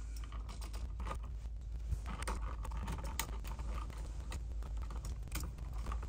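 Scattered light clicks and taps of hands handling a plastic wall outlet and bending a copper ground wire onto its ground screw, with a screwdriver working the screw.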